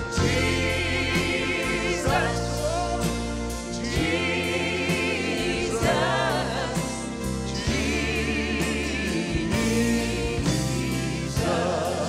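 Live gospel music: a vocal group sings long held notes in harmony, with wide vibrato, over a band with a strong bass.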